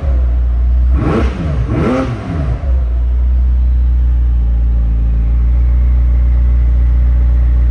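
McLaren 600LT Spider's twin-turbo V8 revved twice in neutral, each blip rising and falling back, then settling into a steady idle, heard from the driver's seat.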